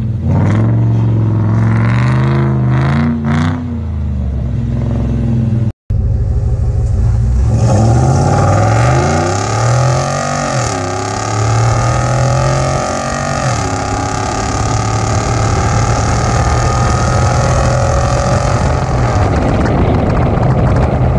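A Ford Bronco's engine revving as the truck slides and spins through snow, then, after a cut, a lifted truck's engine accelerating hard up to highway speed, its pitch climbing and dropping back twice as it shifts up, with steady wind and tyre noise.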